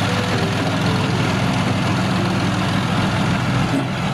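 Tank engine sound effect: a heavy engine running with a steady deep rumble and a hiss above it, cutting off abruptly at the end.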